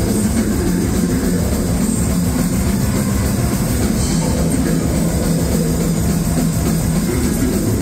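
Technical death metal band playing live, loud and dense: distorted electric guitars, a drum kit and a vocalist.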